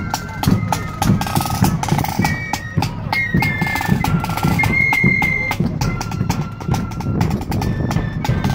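Marching flute band playing a tune: side drums and a bass drum beat a steady march rhythm under held, high flute notes.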